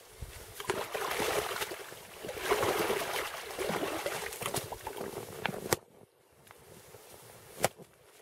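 Water splashing and sloshing in an ice hole as a large burbot is hauled up through it on a setline. The splashing stops suddenly a little before the end, with a sharp knock there and another near the end.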